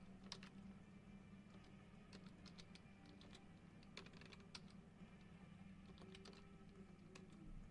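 Near silence with a low hum and faint, irregular light clicks and taps scattered throughout.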